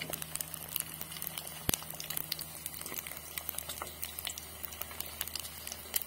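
Egg frying in a small nonstick pan, sizzling with many small irregular crackles and pops. One sharper pop comes about a second and a half in.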